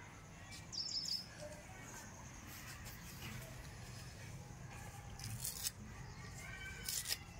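Faint bird chirps over a quiet outdoor background, a short high one about a second in and more near the end, with soft rustles and a brief click or two as fresh coriander and fenugreek leaves are picked from their stems by hand.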